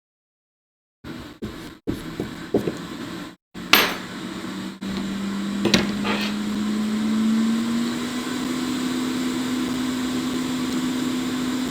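A few small clicks and knocks, then a hot air rework station's blower starts about five seconds in. It hums steadily, its tone rising a little as the fan spins up and then holding.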